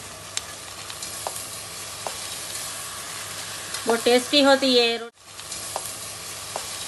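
Mutton, tomatoes and masala frying in oil in a metal pot, with a steady sizzle and a few light clicks as shredded cabbage is added by hand. A woman's brief words come about four seconds in, and the sound cuts out for a moment just after five seconds.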